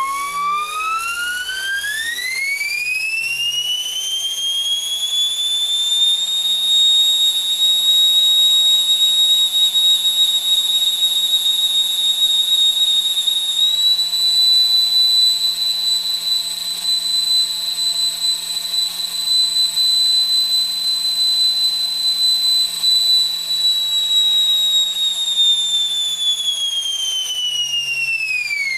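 3D-printed electric jet spinning up with a rising high-pitched whine, holding steady at full speed with a slight jump in pitch about halfway through, then spinning down with a falling whine near the end.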